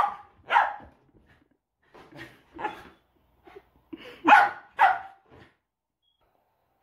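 Border collie barking in short, separate barks: a few softer ones, then two loud barks in quick succession about four and a half seconds in. The dog is worked up over a fidget spinner.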